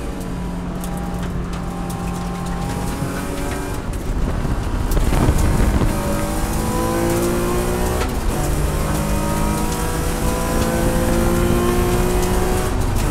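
Race car engine heard from inside the cockpit, held at high revs through a corner, then on full throttle revving up in third gear. About eight seconds in there is a quick upshift to fourth, and it revs up again.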